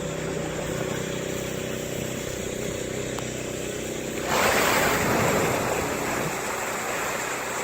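Steady low hum of an idling motor with water lapping, then about four seconds in a loud splash of water, as an animal breaks the surface close to the dock, dying away over a second or two.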